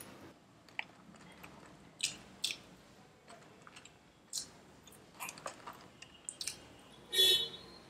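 Close-up chewing of a mouthful of burger with the mouth closed, with scattered short wet clicks and smacks. A louder short mouth sound comes near the end.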